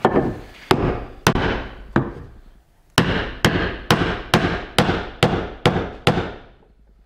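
Hammer blows tapping a new plywood transom down into an aluminum boat hull: about a dozen sharp strikes, each with a short ringing tail. The first four are spaced out, then after a short pause come eight quicker blows at about two a second.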